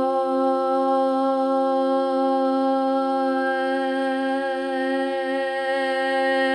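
A single long held vocal tone, hummed or sung on one steady note as healing toning, over a steady two-note drone.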